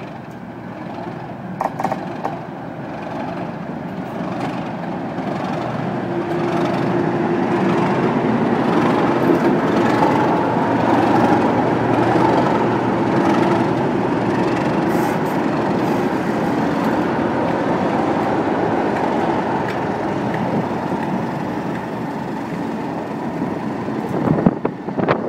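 A pair of Class 37 diesel locomotives passes close by at low speed with a train of coaches, their English Electric V12 engines purring. The engine sound builds over the first ten seconds to its loudest as the locomotives go by, then eases slightly as the coaches roll past, with a few sharp wheel clicks near the end.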